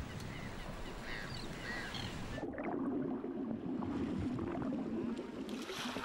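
Sea water sloshing and rushing at the surface as a seal swims. About two seconds in, the hiss drops away suddenly and a lower, fuller rush of water takes over.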